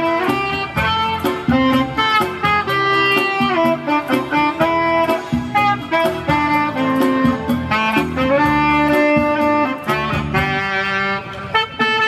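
Saxophone playing a slow melody of held and gliding notes over a band backing with a steady beat.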